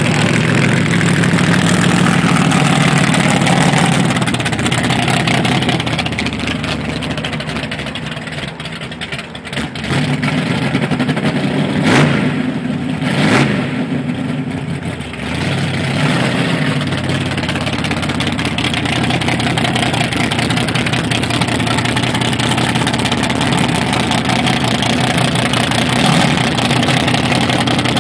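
1959 Chevrolet Apache pickup's engine running and revving, easing off for a couple of seconds around the middle. Two sharp cracks follow close together, then it runs on steadily.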